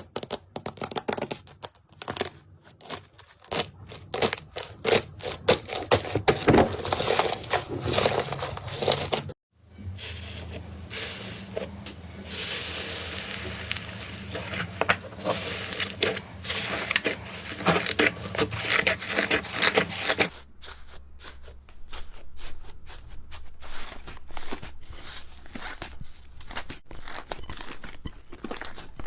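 Slime being squeezed, poked and pulled by hand, giving dense, irregular runs of small clicks and pops. The sound changes abruptly twice, about nine seconds in and again about twenty seconds in, as one slime gives way to another.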